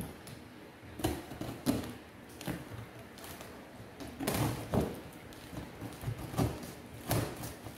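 Scissors cutting through the plastic wrap and tape of a cardboard shipping box: a string of irregular, crunching snips.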